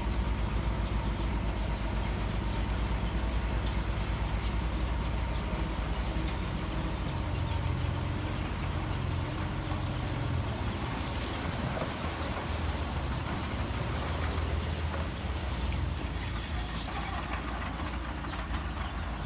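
Heavy diesel earthmoving machinery running with a steady low rumble. From about ten seconds in, a higher hiss and clatter joins it.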